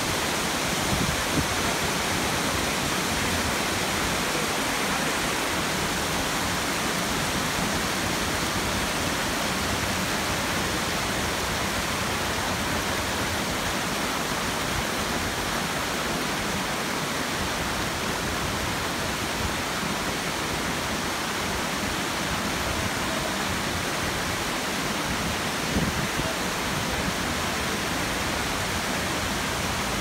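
Steady rush of white water tumbling over rocks in a waterfall stream, an even, unbroken roar.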